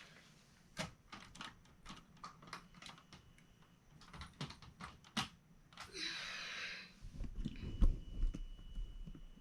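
Light clicks and knocks of a Bachmann Paxton model locomotive being handled and set onto the track by hand, with a short rustle about six seconds in and a few low thumps near the end.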